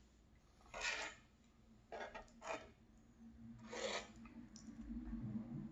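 Crusty baguette crackling and rasping faintly in three short bursts as the bread is chewed and then wiped through the sauce on a nonstick pan.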